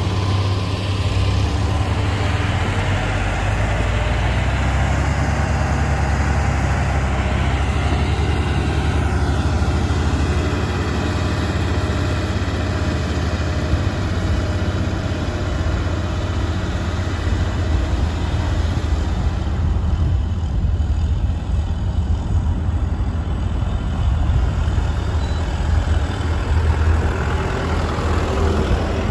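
Heavy diesel engines running steadily: a motor grader working the road close by, joined by a Kubota M6040SU tractor that draws near and grows a little louder toward the end.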